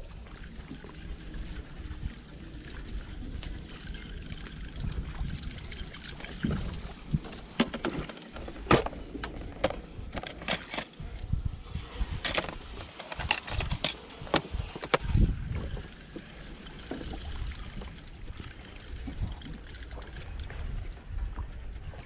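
Metal lures clicking and clattering against each other and the plastic tackle box as they are sorted through, a run of sharp clicks between about six and fifteen seconds in, over a steady low rumble.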